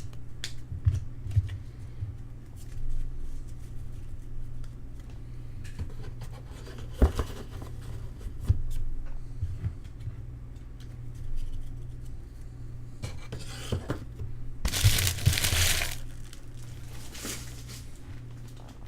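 Trading card pack wrappers crinkling and tearing as packs are opened, with light clicks of cards being handled and a steady low hum underneath. The loudest stretch of crinkling comes about fifteen seconds in.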